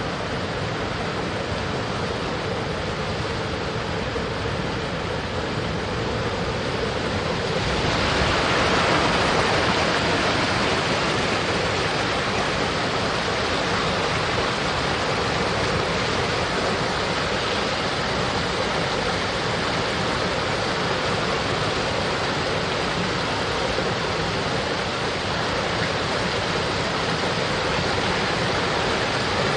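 Mountain stream running over rocks: a steady rush of water that gets louder about eight seconds in.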